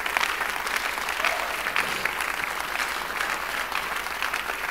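Church congregation applauding: a dense, steady patter of handclaps from a large crowd.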